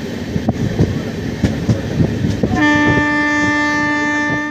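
Train running on the rails, a steady rumble with wheel clicks, heard from inside a moving coach. About two and a half seconds in, a locomotive horn sounds one steady, unchanging blast that lasts about two seconds.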